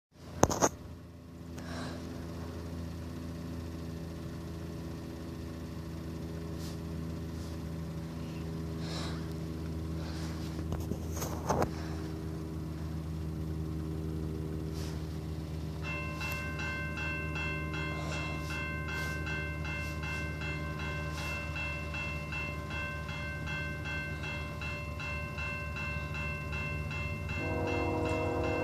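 Level-crossing warning bell starts ringing about halfway through, with rapid, evenly spaced strokes over a low steady hum. Near the end, the horn of the approaching Canadian Pacific train's locomotive sounds.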